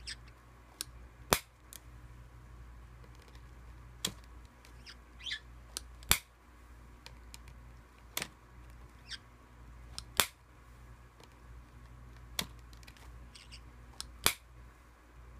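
Metal kiss-lock clasp of a fabric coin purse snapping open and shut, seven sharp clicks about two seconds apart, worked in turn by a parrot's beak and a person's hand. A few short high squeaks fall between the clicks.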